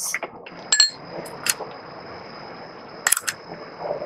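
About four sharp clinks of a metal spoon against small glass bowls and a metal wok, the last two close together about three seconds in.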